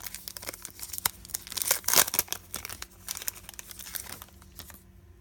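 Foil trading-card pack wrapper being torn open and crinkled by hand: irregular crackling, loudest about two seconds in, thinning out near the end.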